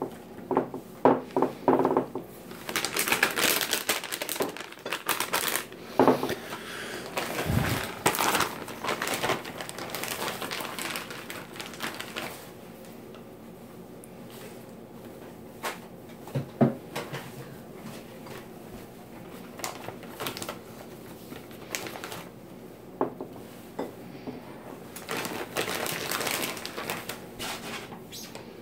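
Plastic food packaging crinkling and rustling in handled spells: bags of shredded cheese and frozen ravioli. Scattered light clicks and knocks come through, with one dull thump about seven and a half seconds in.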